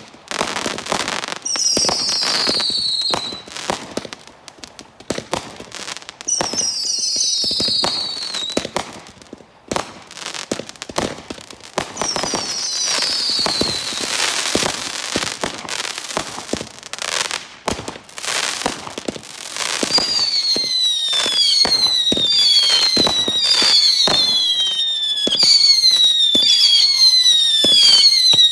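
Consumer firework cakes going off in a fused sequence: a rapid run of sharp launch bangs and crackling bursts. Clusters of whistles falling in pitch come every few seconds, and from about two-thirds in there is a steady string of whistling shots about once a second.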